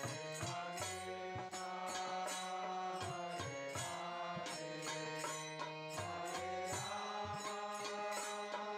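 Soft background devotional music: a chanted mantra over held tones, with light percussion ticking along.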